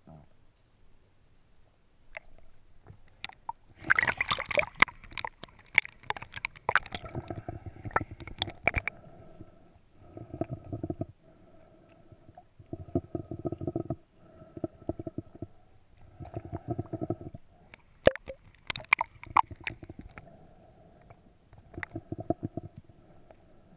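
Water gurgling and sloshing around a GoPro's waterproof housing at the surface, with a dense crackle of bubbles and splashing from about four to nine seconds in. After that, muffled water surges come and go every few seconds, with a few sharp clicks near the end.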